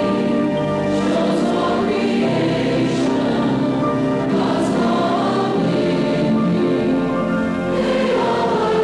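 A congregation singing a devotional song together, many voices holding long notes.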